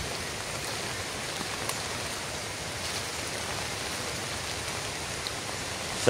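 Steady hiss of rain falling on leaves and ground, with a few faint drop ticks.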